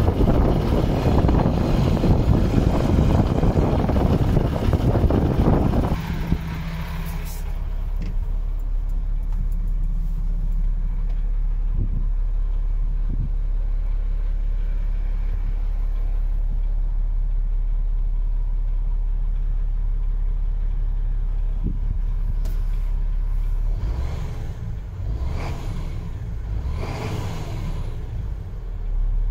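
Wind buffeting the microphone for the first several seconds, then the MAN TGS 18.400's six-cylinder diesel idling steadily, heard from inside the cab.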